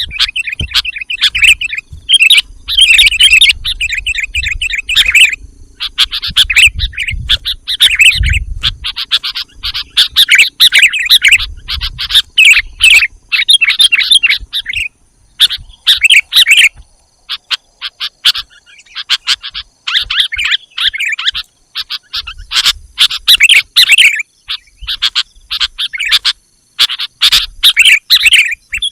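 Sooty-headed bulbuls (kutilang) calling: loud, rapid chattering phrases, each lasting one to a few seconds, repeated with short pauses between them.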